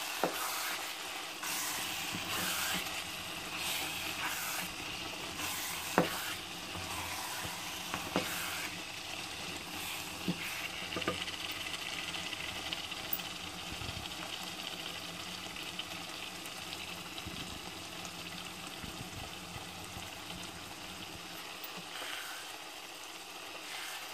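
Thick cabbage-and-mutton curry sizzling steadily in a pot while a wooden spoon stirs through it, with a few sharp knocks of the spoon against the pot in the first half.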